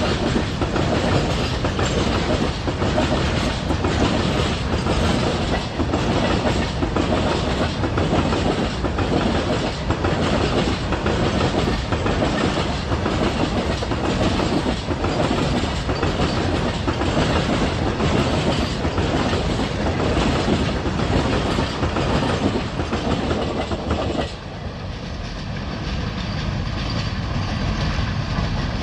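Freight train's covered goods wagons rolling past, their wheels clattering over the rail joints in a steady rhythm of clicks. About 24 seconds in the clatter drops off suddenly as the last vehicle passes, leaving a quieter receding rumble.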